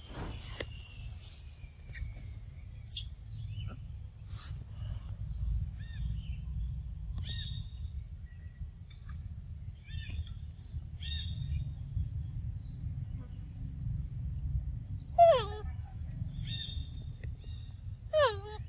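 Forest ambience: a steady high insect drone, scattered short bird chirps and a low rumble underneath. Twice near the end, a loud call slides steeply down in pitch; these two calls are the loudest sounds.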